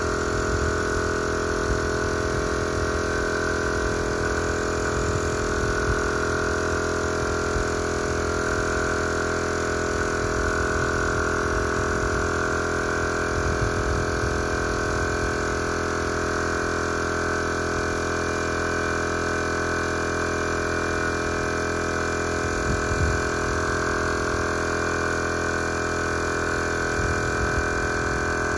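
Air compressor running steadily, a constant machine hum that feeds the paint spray gun.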